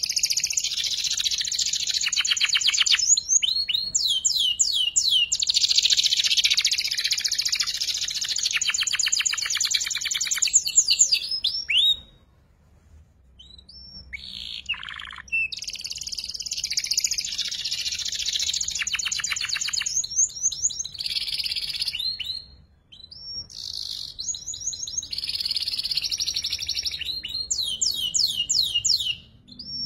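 Young canary singing long, rapid trilled phrases mixed with quick rising whistled sweeps: a juvenile bird practising the 'ngeriwik' rolling trill. The song breaks off for about two seconds near the middle and briefly again later.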